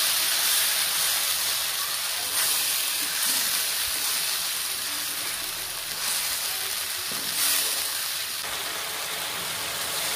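Blended tomato sizzling as it fries in hot oil and onion-garlic masala in a pan, stirred with a wooden spoon. The hiss is steady and swells briefly a few times as the mixture is turned.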